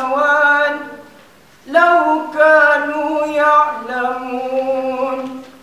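Male voices singing a cappella: a melodic phrase that breaks off about a second in, then after a short pause a second phrase ending on a long held note.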